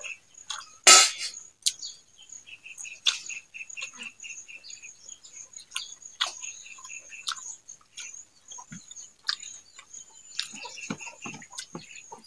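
Fingers mixing rice and fried greens on a steel plate, with scattered small wet clicks and a sharp click about a second in. Behind it runs a steady high insect buzz, with a quick series of bird chirps early on.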